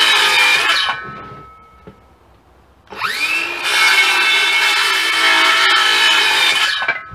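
Circular saw cutting a treated pine 1x6 board. The first cut ends about a second in and the blade winds down. After a quiet couple of seconds the saw spins up with a rising whine and cuts again for about four seconds, stopping near the end.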